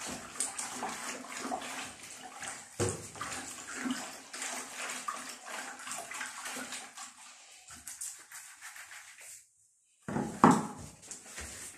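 A hand sloshing and stirring thin liquid primer in a plastic bucket, mixing in ochre tint. The splashing thins out and stops briefly, then a single sharp knock sounds near the end.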